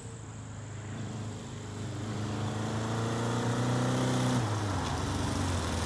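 1981 Honda CB750 DOHC air-cooled inline-four engine running as the motorcycle rides toward the listener, getting louder as it comes closer. The engine note holds steady, then drops about four and a half seconds in, as the throttle eases off.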